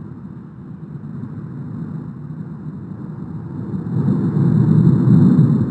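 Erupting volcano's vent roaring: a steady, deep rumble of lava fountaining and ash jetting, which grows louder about four seconds in.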